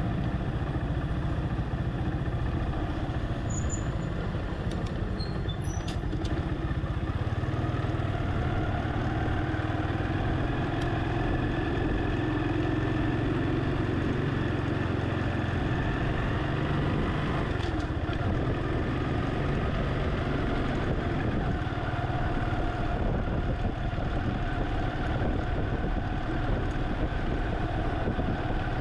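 Steady driving noise of a car moving slowly along a street: a continuous low rumble of engine and road, with a few faint clicks about five to six seconds in.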